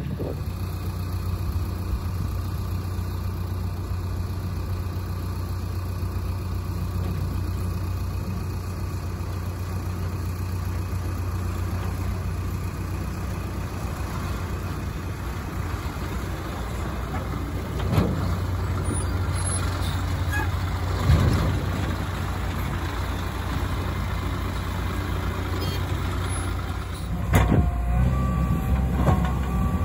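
Diesel engines of a JCB 3DX backhoe loader and a tipper lorry running steadily at work. There are a few sharp knocks partway through and a cluster of knocks and clanks near the end, as the backhoe's bucket works the earth beside the lorry.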